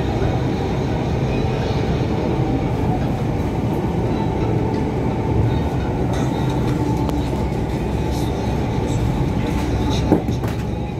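Delhi Metro train running along an elevated track, heard from inside the carriage: a steady rumble of wheels and running gear. A single sharp click sounds about ten seconds in.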